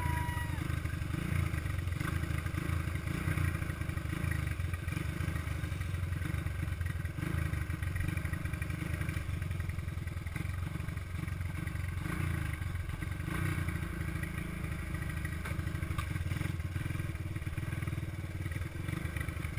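Single-cylinder engine of a small all-terrain vehicle running steadily while riding over a dirt road, heard from on board, with light rattling from the machine.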